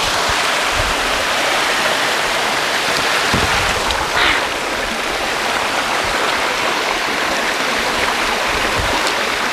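Shallow mountain stream rushing over rocks: a steady, unbroken rush of water.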